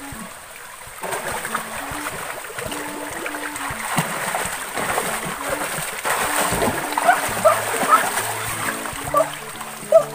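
Water splashing and churning as a person bathes and ducks under in a shallow river pool, starting about a second in, with background music underneath.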